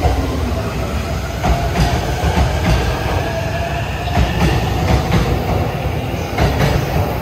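JR East E231 and E233 series electric multiple-unit train passing through a station: a steady heavy rumble with repeated clacks of the wheels over rail joints, and a faint whine above it.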